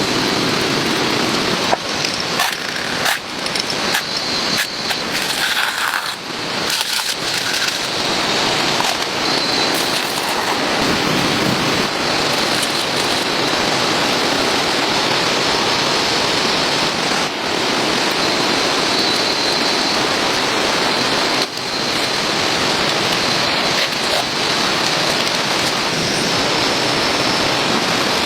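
A steady hissing noise, with scattered clicks and taps in the first several seconds and a few more later.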